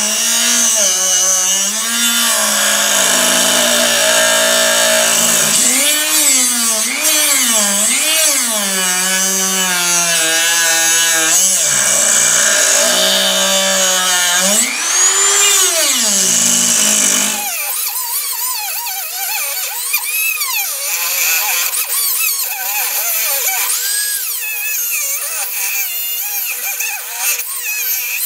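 A Dremel rotary tool with a cutting disc grinding into a wooden hull, its motor pitch sagging and recovering as the disc bites into the wood. About two-thirds of the way through, the low part of the sound drops away, leaving a thinner, steady whine.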